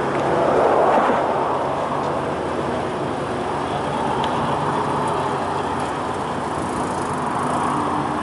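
Car engines running steadily amid traffic noise, briefly louder about a second in.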